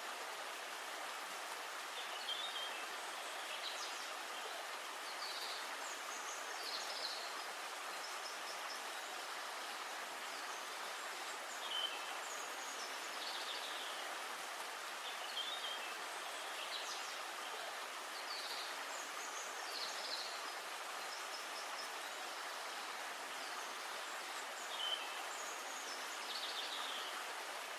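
Steady outdoor ambient noise, like a stream or forest hiss, with short high bird chirps scattered every second or two.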